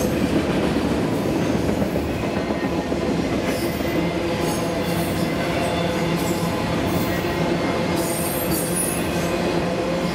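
Steel wheels of autorack freight cars rolling past on the rail with a steady rumble, cut by brief high-pitched wheel squeals off and on.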